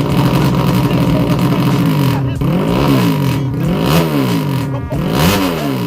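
200cc motorcycle engine breathing through an MP2 aftermarket muffler, running steadily and then revved in repeated throttle blips, each rising and falling in pitch, about one a second.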